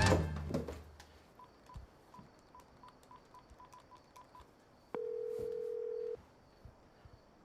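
A phone number is dialled: about a dozen short, same-pitched keypad beeps in quick succession. Then the ringing tone of the outgoing call sounds, a steady tone about a second long, repeating once near the end.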